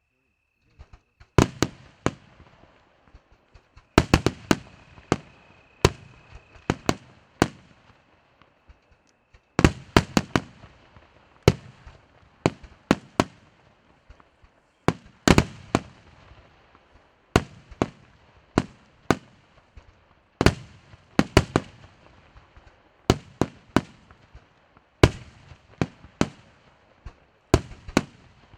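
Fireworks going off in a rapid series of sharp, loud bangs, often several in quick succession, about one cluster a second. A faint steady high whistle sounds under the first third.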